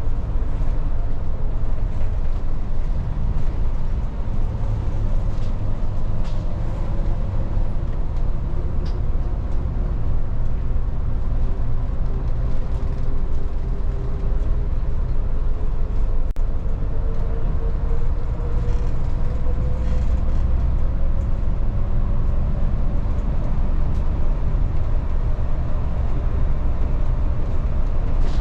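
Volvo 8900 bus driving, heard from inside the cabin: a steady low engine and road rumble, with a drivetrain tone that glides slowly up and down as the speed changes. There are a few light rattles and clicks.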